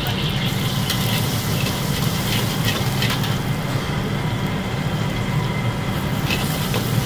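Gas wok burner running with a steady low roar, with a few short scrapes of a metal spatula against the steel wok as it is stirred.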